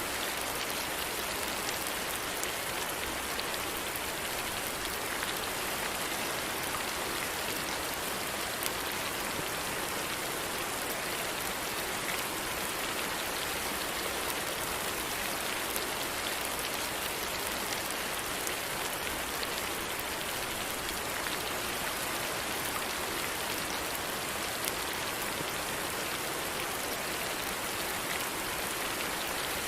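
Steady rain falling, a continuous even hiss with scattered individual drop ticks.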